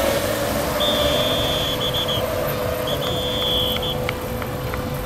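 Electric RC race boats running at speed on the water: a steady motor whine over a hiss of spray. Two high beeps, each about a second long, sound in the first few seconds.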